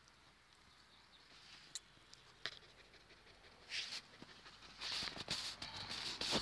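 A Sheltie–terrier cross dog panting close to the microphone after a walk. The panting comes in uneven breaths and grows louder over the second half.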